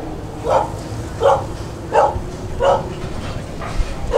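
A dog barking over and over, a short bark about every two-thirds of a second, with a steady background of noise underneath.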